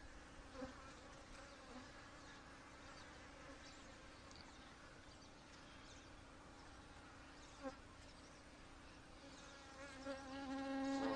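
Honey bees buzzing around an open hive, a faint steady hum. There is a brief click about two-thirds of the way through, and near the end the hum swells much louder as bees come close.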